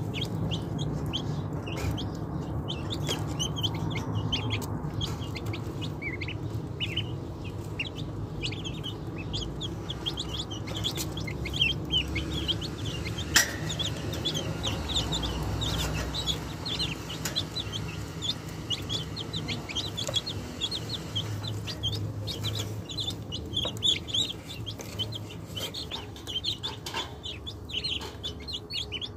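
A group of ducklings peeping continuously, many short high peeps overlapping one another, over a low steady hum.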